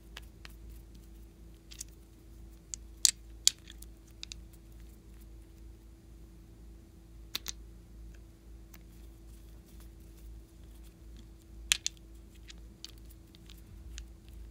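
Small plastic bottles and their screw caps clicking and tapping as they are handled: scattered light clicks, with a few sharper ones about three seconds in, around seven and a half seconds and near twelve seconds, over a faint steady hum.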